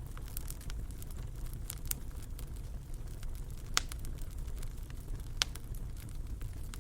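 Wood fire crackling in a fireplace: a steady low rumble of flame with scattered small snaps and two louder pops in the middle.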